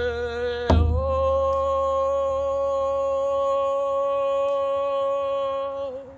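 A woman singing a wordless chant, her voice sliding up into one long held note that breaks off near the end. A single beat on a large hand-held frame drum, struck with a padded beater, falls about a second in.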